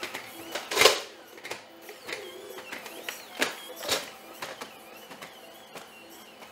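Atlas humanoid robot's hydraulic actuators whining faintly, wavering in pitch, amid mechanical clicks and footfalls as it pushes a metal push-bar door open and steps through. A loud clunk about a second in as the door is pushed open, and another knock near four seconds.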